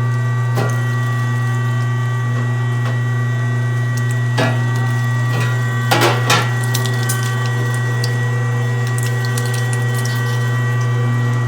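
LEM #22 BigBite 1 HP electric meat grinder running steadily with a strong motor hum while grinding deer meat. There are a few short knocks, two of them close together about six seconds in.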